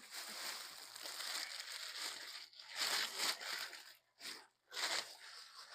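Crinkling, rustling handling noise as the bear prop's shirt is picked up and worked over the frame: a steady rustle for the first two and a half seconds, then several shorter bursts.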